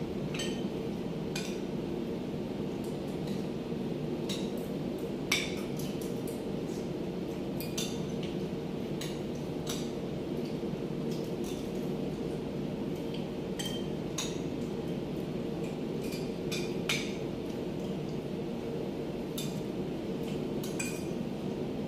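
Forks and spoons clinking and scraping against plates at irregular intervals as two people eat, over a steady low hum.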